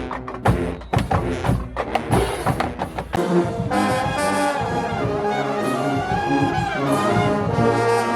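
Marching band playing: sharp drum strikes for about the first three seconds, then the brass section comes in with held chords.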